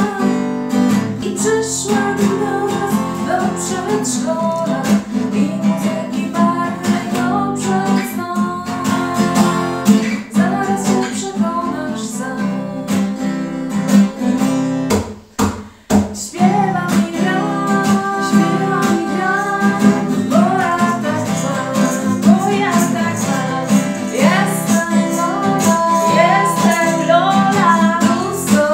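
Acoustic guitar strummed in a steady rhythm while a woman sings a song, with a brief break about halfway through.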